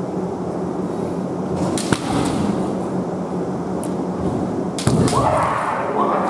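Bamboo shinai clacking lightly against each other, then a sharp crack with a thump about five seconds in, the sound of a kendo strike landing, followed by a long shouted kiai. A referee's flag goes up right after, so the strike counts as a scoring point.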